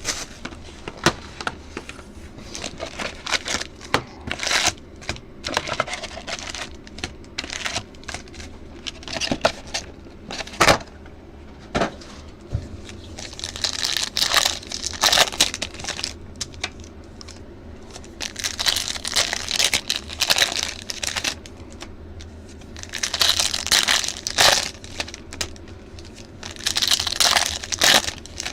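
Foil trading-card pack wrappers being torn open and crinkled, with scattered sharp clicks and taps as the box and cards are handled. The crinkling comes in several separate spells, over a faint steady low hum.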